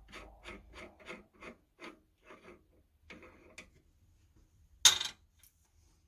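Rhythmic metal-on-metal rasping, about three strokes a second, as a freshly cut 3/4-10 thread on a workpiece in a lathe chuck is worked by hand; the strokes stop about two and a half seconds in. A short scrape ending in a click follows, then a single sharp clack about five seconds in, the loudest sound.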